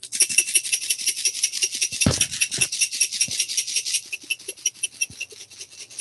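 Whole coffee beans shaken in a stainless-steel dosing cup right after an RDT water spritz, a fast, even rasping rattle that thins out over the last two seconds, with a soft knock about two seconds in.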